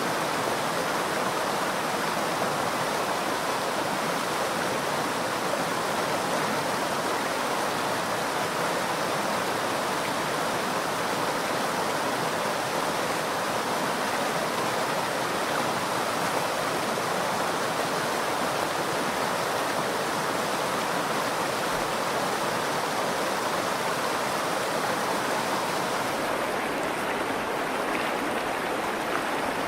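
Steady rushing of the Virgin River's shallow water flowing over rocks, an even, unbroken sound.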